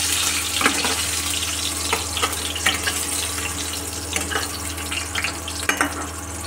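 Boiled potatoes frying in hot oil in a metal kadhai: a steady sizzle, with scattered clicks and scrapes as a metal spatula turns them against the pan. A low steady hum runs underneath.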